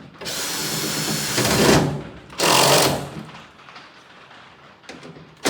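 Power drill-driver spinning in screws on a truck door panel in two bursts: a longer run of about two seconds that gets louder at its end, then a short burst. The driver bit is worn and tends to slip.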